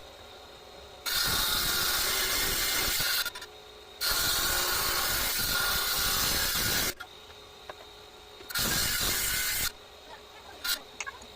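Power saw cutting through a rock, a steady hissing grind in three stretches of one to three seconds that start and stop abruptly, with quieter gaps between.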